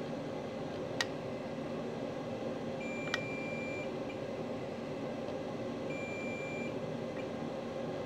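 A digital multimeter's continuity beeper sounds twice as the probe touches iPhone logic-board power rails: one beep of about a second, then a shorter one, steady and high-pitched. The beeps are typical of low-resistance rails rather than a full short. There are a couple of sharp ticks from the probe, over a steady background hum.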